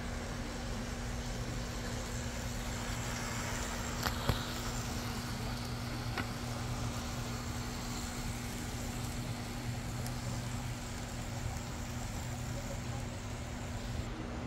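AZL Z scale PRR E8A diesel locomotive models running on the track: a steady low hum and hiss, with a few small clicks about four and six seconds in.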